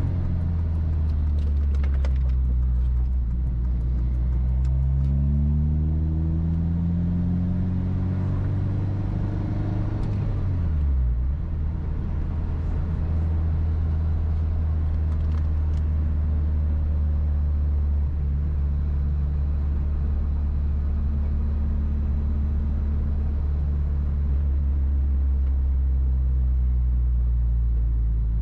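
Honda Civic four-cylinder running through a Megan Racing 4-2-1 header with the cat removed and a Vibrant cat-back with one resonator deleted, driven on the road. Its pitch climbs steadily for several seconds, drops sharply about ten seconds in, then holds a steady cruising drone.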